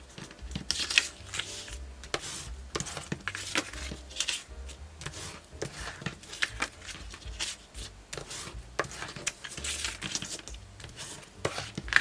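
Folded paper sheets being handled and gathered: irregular rustling with short light taps and clicks.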